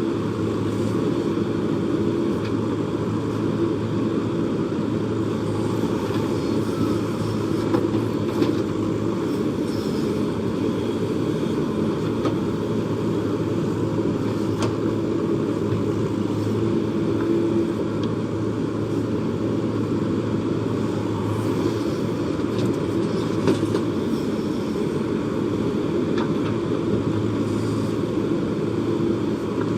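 Diesel engine of a JCB backhoe loader running steadily while it works, with a few brief sharp knocks.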